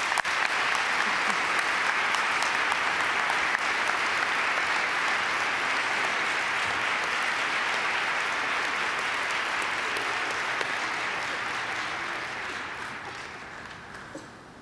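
A large audience applauding steadily, the clapping fading out near the end.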